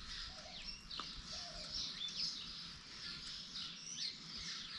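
Small birds chirping repeatedly in short, faint calls over a quiet outdoor background hiss, with a single soft click about a second in.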